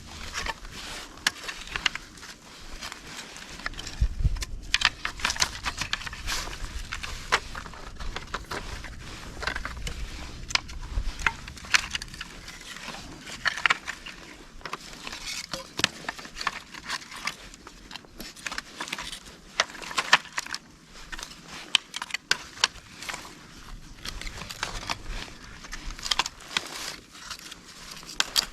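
Strips of split dry bamboo clicking and knocking together as they are handled and bound into a bundle with hemp twine, with irregular clacks and a few dull thumps.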